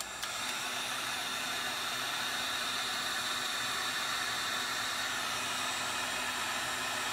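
Wagner heat gun switched on and running steadily: a constant rush of blown air with a low hum underneath, used to shrink heat-shrink tubing over soldered wire joints.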